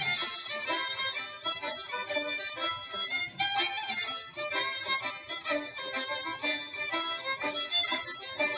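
Instrumental music with a melody of quickly changing notes.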